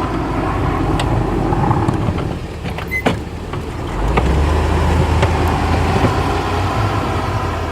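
An engine running steadily, working harder and louder from about four seconds in, with a few light knocks and clicks over it.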